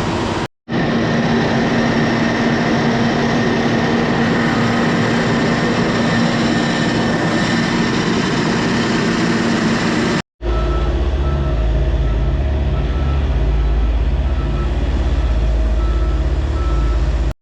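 Heavy vehicle or machinery engines running steadily, broken off twice by sudden short gaps. In the last part a deep engine rumble comes with an evenly repeating beep, about two a second.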